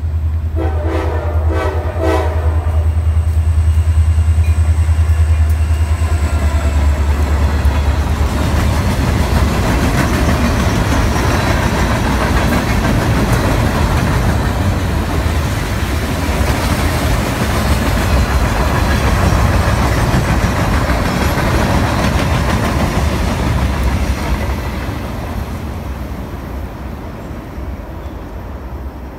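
CSX freight train passing close by: a locomotive air horn sounds and cuts off about two seconds in over the deep drone of the diesel locomotives. A long string of freight cars then rumbles and clatters past on the rails, fading out in the last few seconds.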